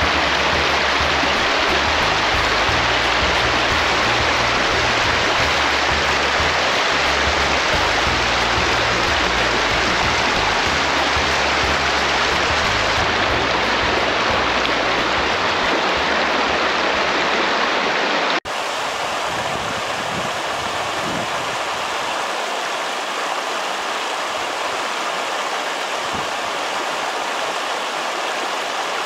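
Steady rushing noise of running water, with a low hum underneath. About 18 seconds in it cuts off abruptly to a quieter, thinner rush without the hum.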